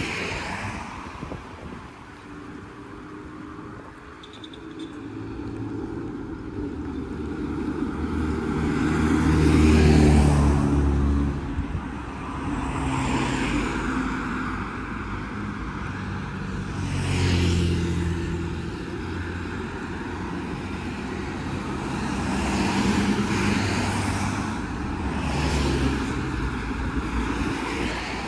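Street traffic: several cars pass one after another, each rising and fading with engine hum and tyre noise. The loudest pass comes about ten seconds in.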